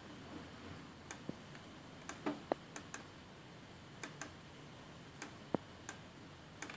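Sharp, irregular clicks from a computer's pointer button, some in quick pairs, as shapes are clicked and dragged out in a paint program.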